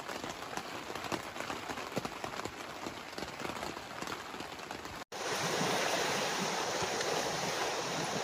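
Rain pattering on a tent's fabric, many small drop ticks over a steady hiss, through a stormy night. About five seconds in it cuts to a louder, even rush of wind and rain against the tent.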